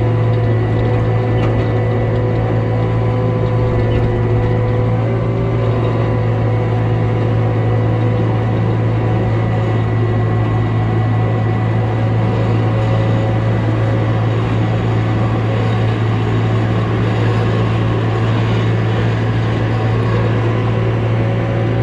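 Farm tractor engine running at a steady speed: a constant low drone with a few steady higher tones above it.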